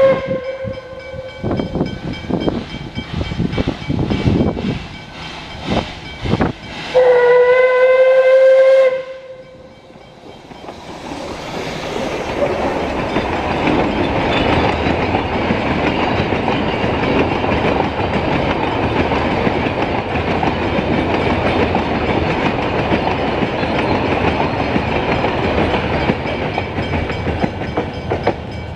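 Puffing Billy narrow-gauge steam locomotive approaching: a whistle blast cuts off just after the start, then chuffing exhaust beats, then a long whistle blast of about two seconds, the loudest sound. After a short lull comes the steady rumble and clatter of the train's carriages rolling past close by on the rails.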